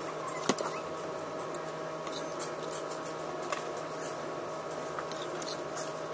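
Light clicks of a spoon against a bowl during eating, with one sharper clink about half a second in, over a steady hum.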